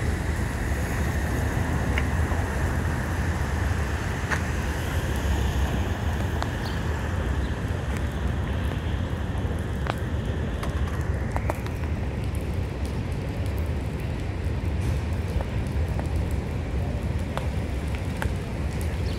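Steady low rumble of wind buffeting the microphone over city traffic noise, with a few faint clicks.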